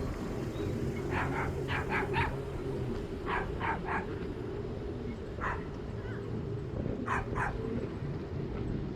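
Small dog yipping in quick bursts of two or three short barks, about ten yips in all, over a steady low rumble.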